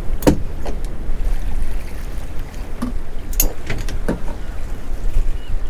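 Steady low rumble of wind and sea around a small drifting boat, broken by a few sharp knocks and clicks: one just after the start, another under a second in, and two more around three and a half and four seconds in. Faint short high chirps repeat near the end.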